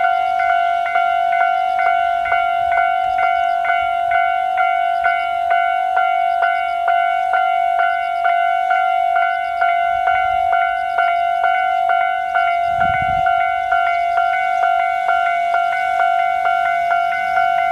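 Japanese railway level crossing warning bell ringing steadily, about two strikes a second, the signal that a train is approaching. A brief low rumble about 13 seconds in.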